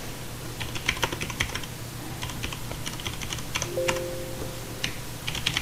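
Computer keyboard typing: irregular clusters of sharp key clicks as a short terminal command is typed and entered, over a steady low hum.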